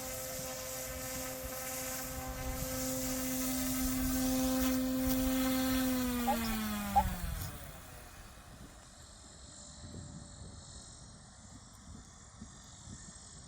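Goosky S1 RC helicopter's electric motor and rotor whining steadily, then spinning down: the pitch falls away about six seconds in and the whine dies out. There is a sharp click at about seven seconds. After that, crickets chirp faintly.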